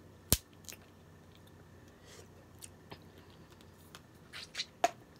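Close-miked mukbang eating sounds: one sharp click shortly after the start, then a few quiet wet mouth smacks and a click near the end as fingers are licked clean of seafood-boil seasoning.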